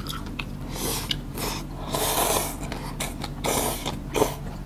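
Rice vermicelli noodles being slurped from a spoon and chopsticks in several noisy sucking bursts. The longest slurp comes about two seconds in.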